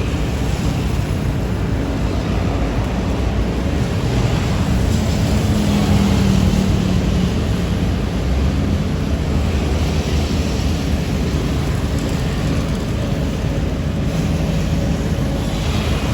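Diesel engines of road-paving machinery running steadily with a heavy low rumble, a held engine tone rising a little in strength about five seconds in.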